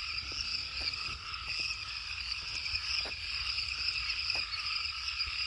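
Steady night chorus of crickets and frogs, a continuous high trilling that holds at several pitches.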